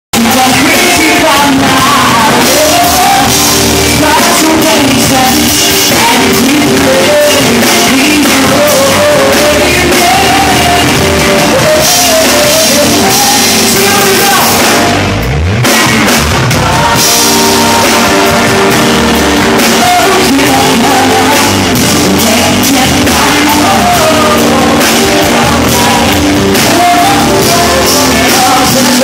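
Live band playing loud on drum kit and electric guitar, with a short break in the music about halfway through.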